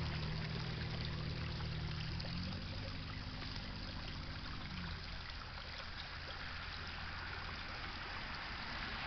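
Water rushing out of an open fire hydrant during flushing, a steady even rush. A low hum sits under it and fades away about halfway through.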